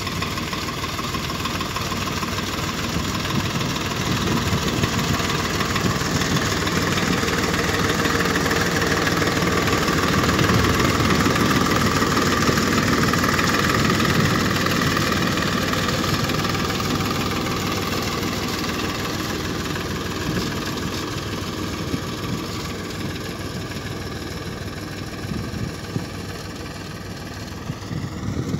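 Farm tractor's engine running steadily as it pulls a potato planter through the field, growing louder as it passes close about halfway through and fading as it moves away.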